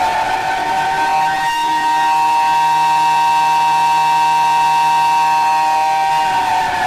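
Emergency alert siren sounding an earthquake warning: a loud, held, chord-like tone that starts to wind down, falling in pitch, near the end.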